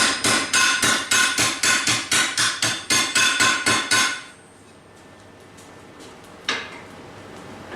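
Hand hammer striking hot leaf-spring steel on an anvil, about three to four ringing blows a second, while the spring's curve is bent into shape. The hammering stops about four seconds in, and one more single blow lands a couple of seconds later.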